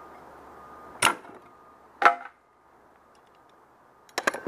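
Locking pliers clamped to a plywood template on the fibreglass hull being released with a sharp snap about a second in. About a second later comes a knock with a brief ring as the pliers and template come off, and a quick run of clicks near the end.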